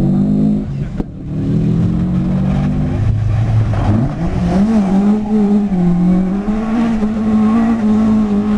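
Rally car engines at hard throttle. The first revs up and fades in the opening second. A second car then comes through, its engine held at high, fairly steady revs with small rises and dips, climbing a little near the end.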